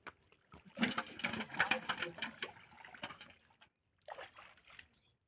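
Shallow muddy water splashing and sloshing as hands grope through it for fish, in a few uneven bursts broken by brief silent gaps.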